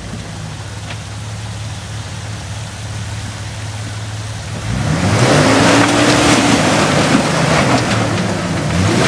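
Jeep Wrangler Rubicon's straight-six engine idling, then about five seconds in revving hard and up and down in pitch as the Jeep makes a run at a rock ledge, with tires grinding over rock and snow.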